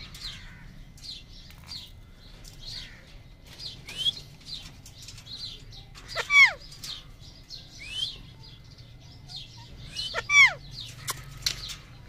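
Caged Alexandrine parakeets calling: many short, high chirps, a couple of brief rising whistles, and two loud, harsh calls about six and ten seconds in, each falling in pitch.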